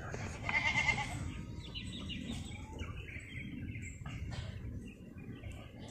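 Faint bird chirps over a low outdoor rumble, with one louder wavering call about half a second in and a run of short high chirps a couple of seconds later.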